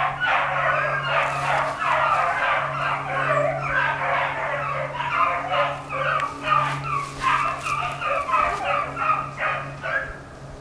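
A pack of beagles baying in full cry as they run a rabbit's scent line, many voices overlapping in a steady chorus that thins to a few separate barks near the end. A steady low hum sits underneath.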